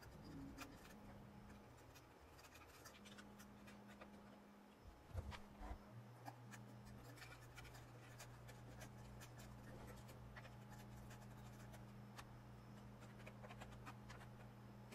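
Near silence with faint scattered clicks and scrapes of a CPU cooler's metal mounting bracket and screws being handled and lined up over the motherboard's screw holes, a few louder knocks about five seconds in, over a faint low hum.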